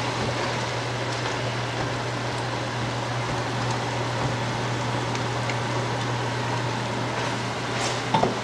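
Oil sizzling steadily in a stainless frying pan of onions and smoked herring as cubed raw eggplant is tipped in, over a steady low hum.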